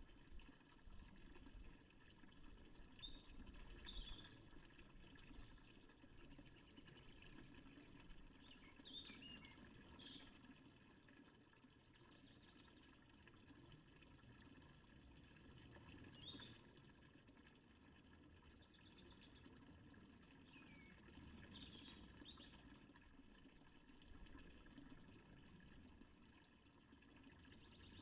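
Faint, steady running water of a fountain, with birds chirping briefly every few seconds.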